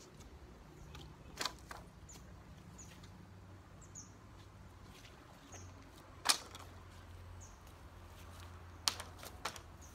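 A small bird chirping, short high falling notes every second or so, over a low steady hum. A few sharp clicks break in, the loudest about six seconds in and two more near the end.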